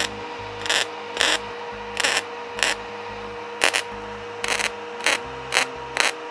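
MIG welder laying a series of short stitch welds, about ten brief crackling bursts of the arc with short pauses between, over a steady hum. The welds bridge a gap and fill in worn-through metal on an old wagon iron.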